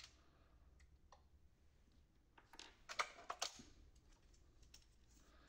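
Quiet plastic clicks and rattles as the scan carriage of an HP LaserJet M234 scanner unit is unclipped and lifted out of its plastic base, bunched together about two and a half to three and a half seconds in.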